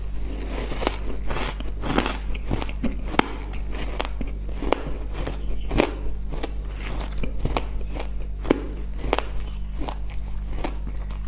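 A person biting and chewing mouthfuls of hard shaved ice close to the microphone: a fast, irregular run of sharp, crisp crunches. A steady low hum runs underneath.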